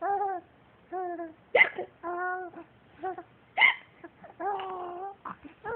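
Hiccups, two sharp ones about two seconds apart, with a small child's high-pitched laughing squeals in short bursts between them.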